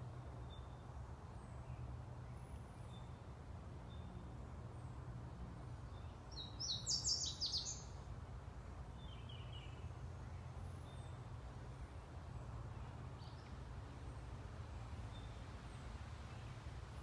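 Wild birds singing: faint short high chirps repeat throughout, and one louder, quick run of notes comes about seven seconds in, all over a steady low hum.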